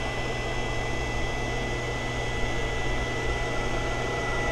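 Steady electrical hum and fan whir from the powered HHO pulse circuit and its cooling fan, with a thin high whine held steady above it.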